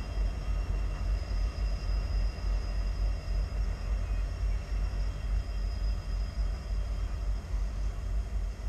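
A freight train, a coal train of hopper cars, passing at a distance: a low rumble that wavers rapidly, with no horn or sharp sounds.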